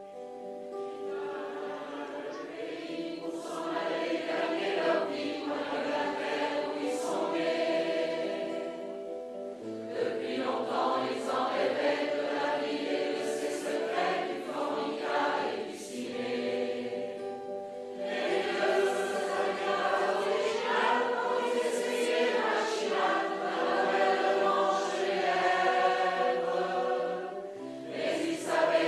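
A large mixed choir of men's and women's voices singing a French chanson in harmony, in long phrases with short breaks between them.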